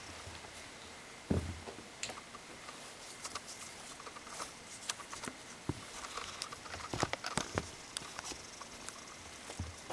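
Kittens playing: irregular soft thumps, scuffs and scratchy clicks of paws and claws on carpet and curtain fabric, with occasional knocks from the camera and its strap as they bat at it.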